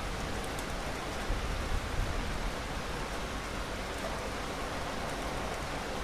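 Steady rain falling, with a brief low rumble swelling about a second and a half in.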